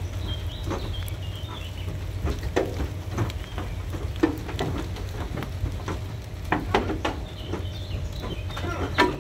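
Highland cattle hooves knocking and clattering irregularly on the metal floor and ramp of a livestock trailer as a cow steps out.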